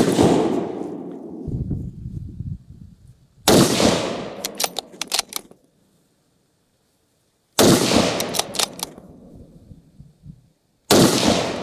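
Four shots from a .308 bolt-action rifle with a 9.5-inch barrel, the Black Creek Labs TRX Bronco 'Howitzer'. The first comes right at the start, the others about 3.5, 7.5 and 11 seconds in. Each is a sharp, loud report that rings and echoes away over a second or two, and a few quick metallic clicks, the bolt being worked, follow the second and third shots.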